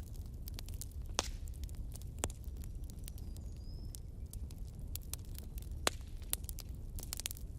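Wood fire burning in a fireplace: irregular crackles and sharp pops of burning logs over a steady low rumble of flames, a few pops louder than the rest, with a faint short whistle about three and a half seconds in.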